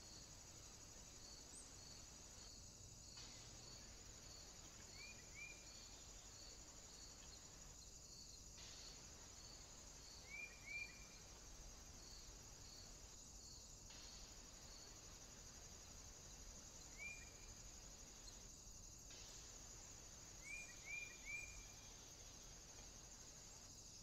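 Faint, steady high chirring of insects with an even ticking pulse, and a few short bird chirps that come in twos and threes.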